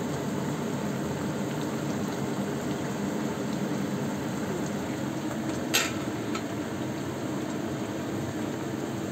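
Chicken, meat and papaya soup bubbling steadily in a wok over a gas burner as a spatula stirs it. About six seconds in, one sharp clack as the spatula strikes the pan.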